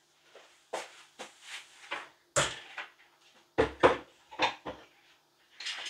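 Kitchen cupboard opening and closing amid a string of knocks and clunks, about ten in a few seconds. The loudest come a little over two seconds in and around three and a half seconds in.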